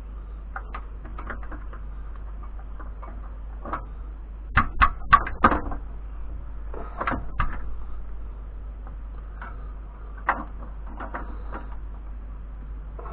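Small clicks and taps of metal Athena pen-kit parts being handled and fitted together, with a quick run of louder clicks about four and a half seconds in, over a steady low hum.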